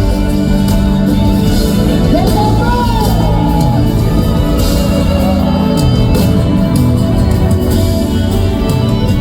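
Live band playing a slow song through a PA system, with sustained chords throughout. A melody line slides up and down over them from about two seconds in.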